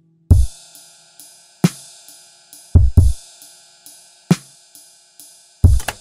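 Background music: an electronic drum beat comes in about a third of a second in, with deep kick drums, snare hits and steady hi-hat ticks over held synth tones.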